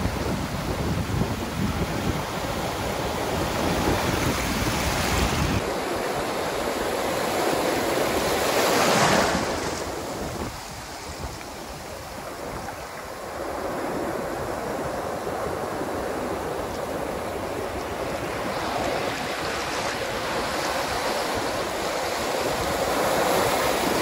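Ocean surf heard close up at the water's edge: waves breaking and foam washing over the sand in a steady hiss. It swells in surges, with one wave loudest about nine seconds in, a quieter lull after it, and another building near the end.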